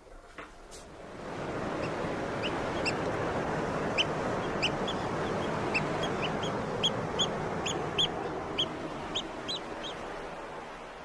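Surf of breaking sea waves, a steady rush that swells up about a second in, with gulls calling over it: many short, high calls, roughly two a second.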